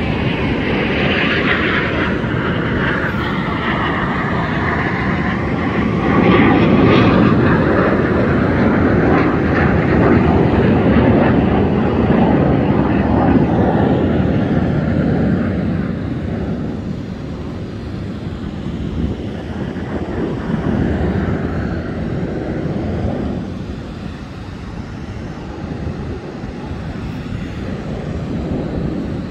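Jet display aircraft flying past, their engine noise swelling about six seconds in and then slowly fading.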